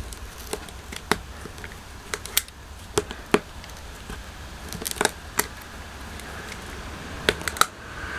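Irregular sharp clicks and light scratching from a small metal tool poking and prodding through upholstery fabric on a dinette bench, feeling for covered bolt holes.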